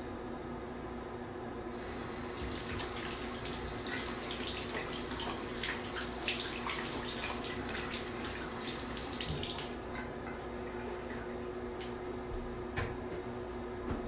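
Bathroom exhaust fan humming steadily, with water running hard from about two seconds in, stopping about nine and a half seconds in. A sharp click near the end.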